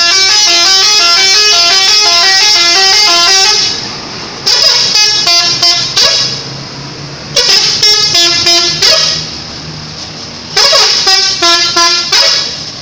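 Indonesian 'telolet' multi-tone bus air horn playing a tune: a loud, continuous stepping melody for about three and a half seconds, then three shorter bursts of rapid toots and notes about three seconds apart.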